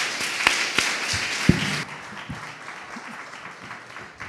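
Audience applauding, loud for about the first two seconds, then dying away.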